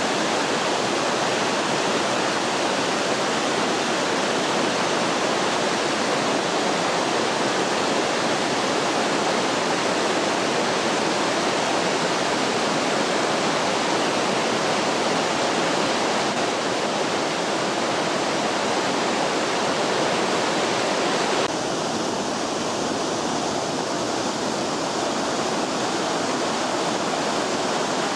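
Mountain stream and waterfall water rushing and splashing over rock steps, a steady loud rush. About three-quarters of the way through it drops a little in level and changes slightly in tone.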